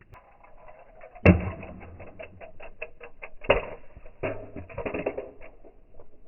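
Toy cars clattering on a plastic track: a sharp knock about a second in, then a quick run of light clicks, about six a second, and two more knocks.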